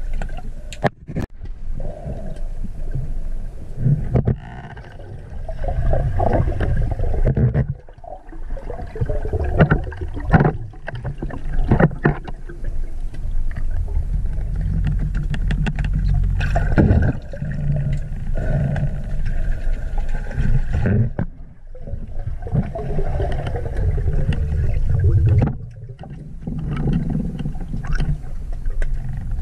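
Muffled underwater sound of a diver swimming: low rushing and gurgling of water around the camera, with scattered clicks and taps.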